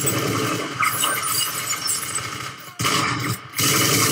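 Automatic rifle fire in a TV-drama shootout, in dense strings of shots that break off briefly twice near the end.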